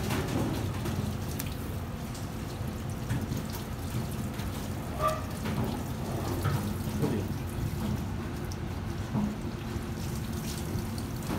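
Water running from a kitchen spray faucet onto a whole sea bream being rinsed in a stainless steel sink, with a few light clinks and knocks of kitchen work.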